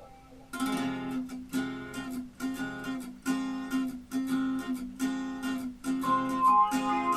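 Acoustic guitar strumming in a steady rhythm, about two and a half strums a second, starting about half a second in after a soft lull: music played back through Bang & Olufsen Beolab 3000 active speakers.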